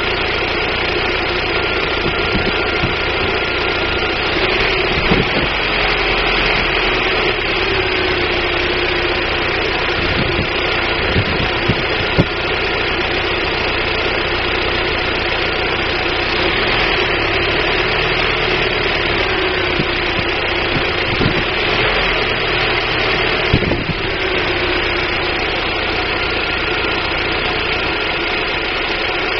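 1999 Daewoo Nubira 2.0 L DOHC four-cylinder engine (U20SED) idling, its speed wavering slightly, with a few sharp ticks now and then. The owner suspects a misfire from weak spark out of the DIS ignition coil.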